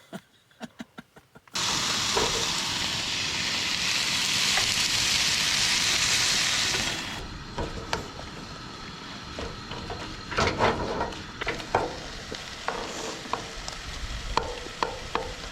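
Breakfast food sizzling in a frying pan. The sizzle starts suddenly about a second and a half in and is loudest for the next few seconds, then drops to a quieter sizzle with scattered clicks and scrapes of stirring.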